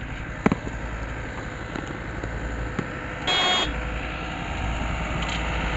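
Motorcycle running down a rough dirt road: a steady low engine and road rumble, a sharp click about half a second in, and a short horn beep lasting under half a second a little after three seconds in.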